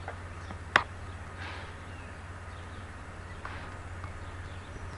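Outdoor background with a steady low hum and a few faint short chirps, broken by a single sharp click just under a second in.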